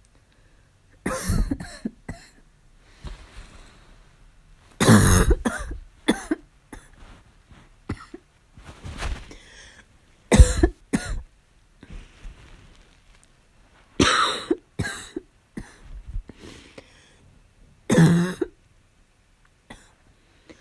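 A person's harsh barking cough from a cold, coming in repeated bouts: a loud cough about every four seconds, with smaller coughs in between.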